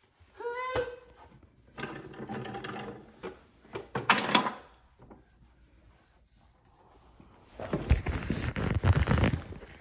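Knocks and rustling of a toddler climbing from a high chair onto a sofa arm, with a short squeal that glides up and down about half a second in. Near the end, a loud stretch of rubbing and scraping as the phone is handled and covered.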